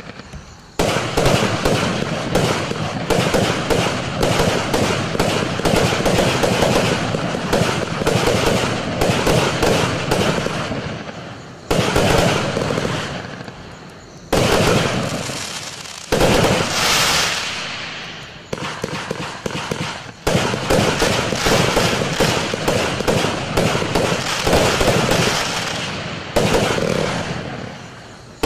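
#Watt 'Say Watt' consumer fireworks cake firing: rapid runs of launch shots and bursting bangs. They come in five volleys that each start suddenly and trail off, with short lulls between them.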